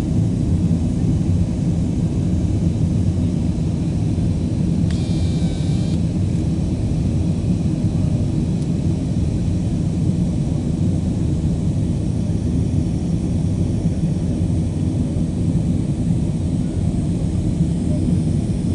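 Steady cabin noise of a jet airliner in its climb after takeoff: the engine and airflow rumble heard from inside the cabin. A brief high-pitched sound cuts in about five seconds in.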